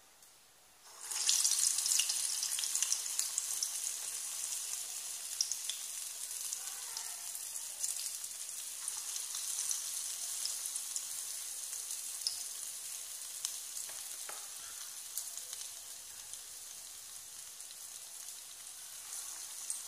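Urad dal vada batter deep-frying in hot oil. The sizzle starts suddenly about a second in as the batter goes into the oil, with scattered crackles, loudest at first, then settling to a steadier, slowly softening hiss.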